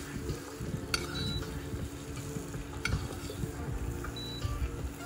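A metal spoon scraping and clinking in a stainless steel frying pan as roasted vegetables are spooned out onto a plate, with a couple of sharp clicks of metal on metal.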